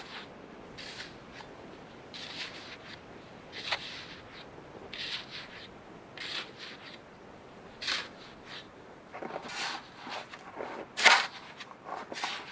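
A metal shovel scraping and scooping deep powdery snow, one stroke about every second and a half, each a short hissing crunch, with the loudest scoop near the end.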